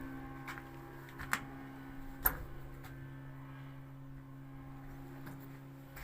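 A steady low hum of several held tones, with a few sharp clicks and knocks scattered through it; the loudest click comes a little over two seconds in.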